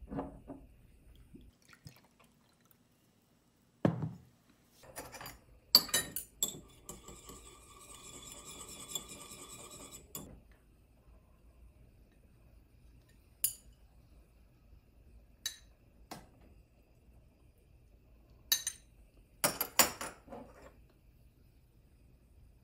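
A glass bottle is set down with a thump and clicks as it is opened, then liquid pours steadily from it into a small glass for about three seconds. Later come scattered sharp clinks of metal chopsticks and a ladle against a ceramic bowl and the metal pot.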